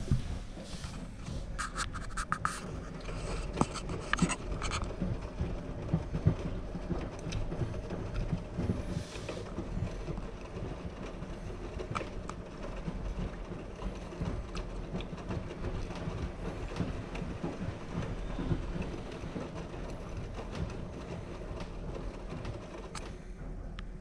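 AEG Öko-Lavamat front-loading washing machine in its wash phase, the drum turning the wet laundry: a steady low motor hum with frequent small knocks and clicks from the tumbling load, thickest a few seconds in.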